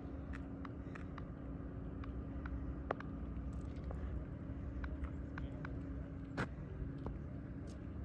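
An engine running steadily, a low hum with a held tone that drops lower about six and a half seconds in, with scattered sharp ticks throughout and a louder click as the tone changes.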